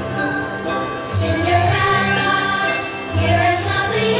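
The fireworks show's soundtrack music, with held notes and a low bass swell that comes and goes.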